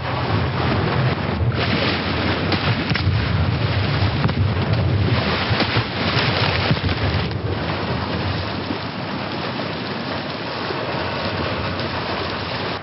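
Sinking-ship sound effect: a dense rushing noise like pouring water, with a deep rumble underneath, easing a little after about eight seconds.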